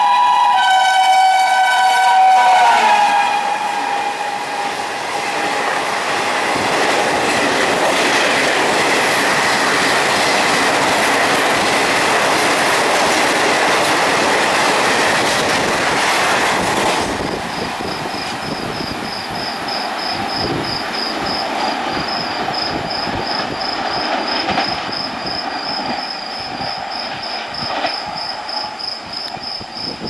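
An Indian Railways WAP5 electric locomotive's two-note horn blares and drops slightly in pitch as it passes. A Duronto express's coaches then rush past at speed, cutting off abruptly about seventeen seconds in. After that, insects chirp in a steady high pulsing tone while the train fades away.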